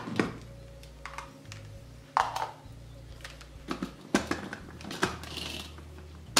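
Light plastic clicks and knocks as a mini chopper's motor unit and bowl, loaded with chunks of hard bread, are handled and set ready, a few scattered taps over a low steady hum.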